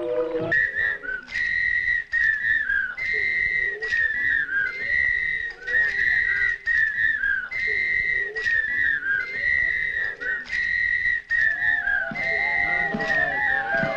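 A high, whistle-like tone repeating a short phrase about every one and a half seconds: a held note that ends in a few small downward glides. Lower musical notes join near the end.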